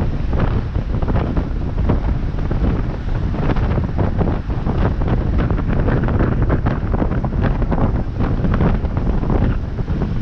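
Wind buffeting a GoPro 7's microphone on a moving bicycle, a steady low rumble with many small ticks and rattles through it.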